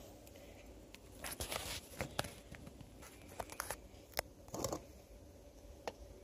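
A spatula stirring and scraping glue-and-sand slime in a bowl as laundry detergent activates it: faint, irregular clicks and short scrapes.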